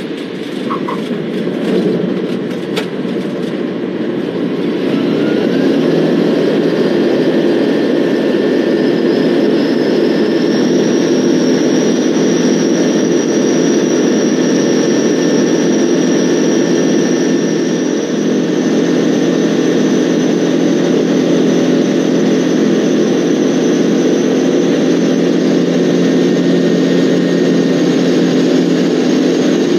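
Van's RV-12's Rotax 912 four-cylinder engine and propeller heard from inside the cockpit during a takeoff, growing louder over the first few seconds as power comes up, then running steadily at climb power with a high whine that rises in pitch and settles.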